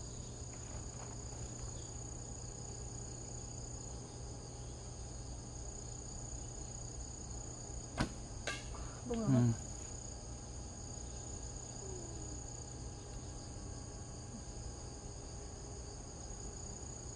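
Insects chirring steadily in high, even tones. About eight seconds in, a traditional bow is shot: a sharp snap of the string's release, then a second crack about half a second later as the arrow strikes, followed by a brief voice.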